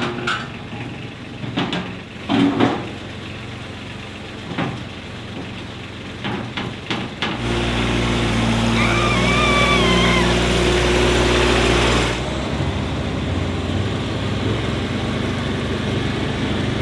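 Tractor engine running, with a few knocks in the first seconds. From about seven seconds in it runs louder for about five seconds, a wavering high squeal over it, then drops back to a steady lower run.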